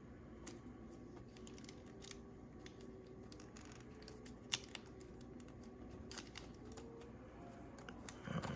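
Scattered small clicks and taps of a plastic action figure being handled and posed, with one sharper click about halfway through.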